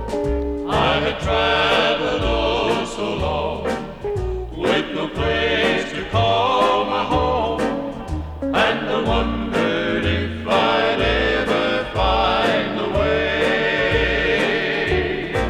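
Background gospel song: voices singing over a steady bass line.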